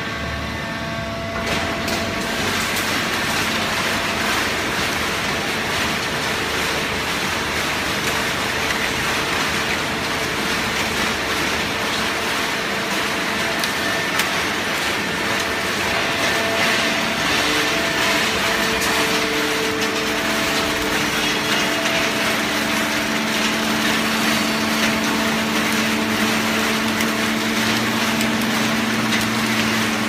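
Fully automatic horizontal hydraulic baler running: a loud, steady mechanical din from its motor and hydraulic pump, with a few steady hums through it. A low hum comes up more strongly in the last third.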